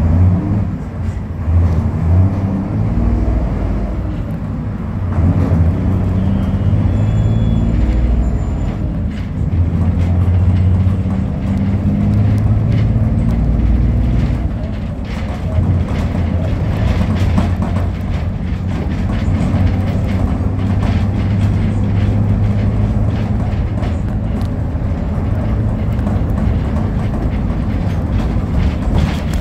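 Steady low rumble of a road vehicle driving at speed, heard from inside it, with road noise and frequent light rattles and knocks from the body.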